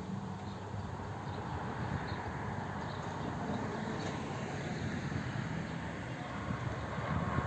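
Distant SA133/SA134 diesel railcar approaching, its engine hum growing louder toward the end, over steady outdoor background noise with a few high bird chirps.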